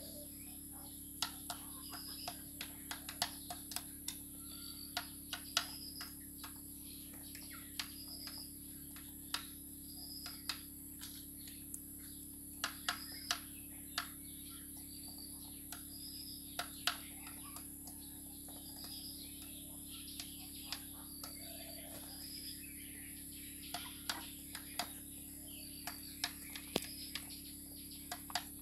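Chickens pecking rice from a ceramic bowl: irregular sharp clicks of beaks striking the bowl and the ground, sometimes several in quick succession, with faint high chirps every second or two over a steady hum.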